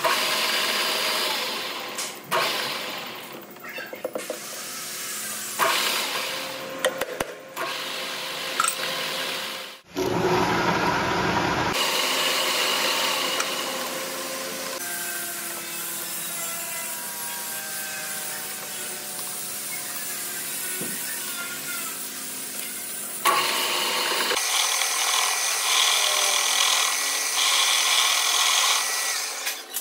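A metal lathe turning the weld-built-up worn end of a starter motor armature shaft: the cutting tool scrapes and cuts steel over the running lathe. The sound changes abruptly several times.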